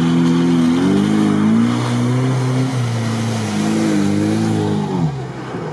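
Lada Niva's engine held at high revs while the 4x4 churns through deep mud, its pitch wavering as the wheels grip and slip, then falling away about five seconds in as the driver lifts off.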